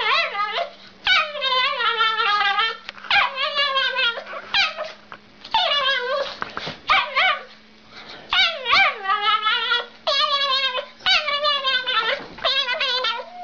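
An animal's repeated calls, about a dozen long cries in a row, each rising and falling in pitch, with short pauses between them. A steady low hum runs underneath.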